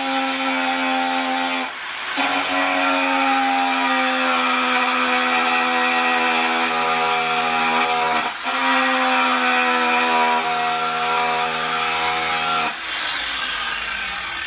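Stayer AGR24 large angle grinder with a 3 mm abrasive disc grinding fire scale off the surface of a Damascus steel billet: a steady high whine over a grinding hiss. The disc lifts off the steel briefly twice, and near the end the grinder comes off the work and its whine falls away as it winds down.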